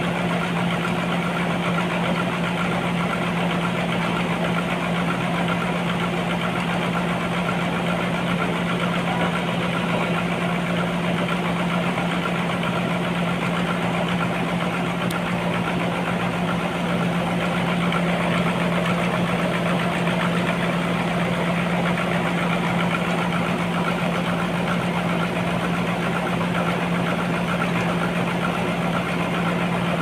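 Sawmill machinery running with a steady, unchanging hum and a strong constant low tone.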